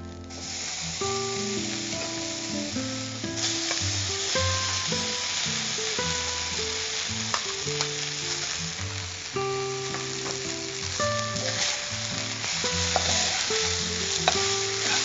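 Cooked rice being tipped into hot ghee tempering with cumin, pepper and curry leaves in a non-stick kadai and stirred with a metal slotted spoon: steady sizzling with scattered spoon clicks and scrapes, the sizzle growing denser a few seconds in. Soft background music plays underneath.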